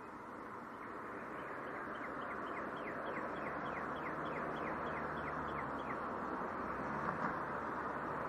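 A songbird repeating a quick series of short, high, downward-sliding notes, about four a second for about five seconds, over a steady rushing background noise that slowly grows louder.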